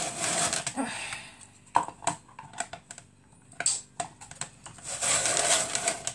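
Kitchen work sounds: busy rustling and scraping near the start and again near the end, with a few separate clicks and knocks of utensils or dishes in between.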